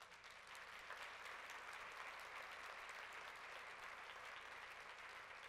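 An audience applauding, a steady patter of many hands clapping.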